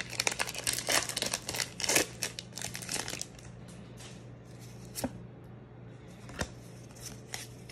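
Foil wrapper of a Pokémon TCG booster pack being torn open by hand, crackling and crinkling for about three seconds. After that it goes quieter, with a few single light clicks.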